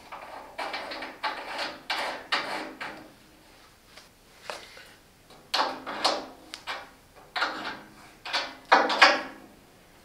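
New Parkside self-bleeding radiator valve being screwed into the radiator's end port and tightened with a spanner: short metallic scraping strokes, a lull, then louder strokes in the second half.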